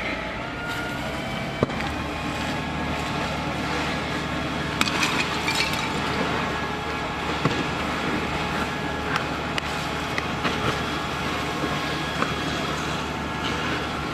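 A fire engine's engine runs steadily while a burning car gives off scattered sharp pops and cracks, with a cluster of crackling about five seconds in.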